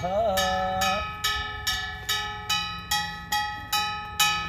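Metal temple bell struck in a steady rhythm, a little over two strikes a second, each strike ringing on and fading before the next. A chanting voice runs over the first second.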